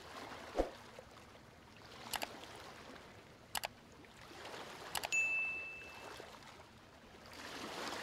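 Subscribe-button animation sound effects: a soft thud, then three mouse clicks about a second and a half apart. The last click is followed by a short bell ding that fades over about a second, and a swell of rushing noise comes near the end.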